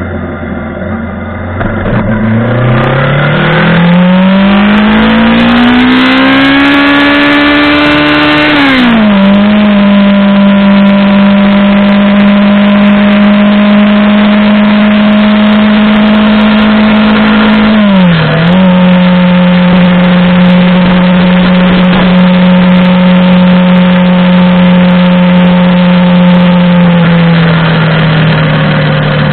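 Montana XR5 motorcycle engine and exhaust under way. The engine note climbs steadily for several seconds, drops sharply at a gear change about nine seconds in, then holds steady at cruising speed. It dips briefly about eighteen seconds in and eases off a little near the end.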